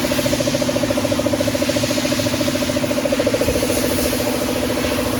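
An engine or motor running steadily at idle, with a fast, even pulse and a steady hum.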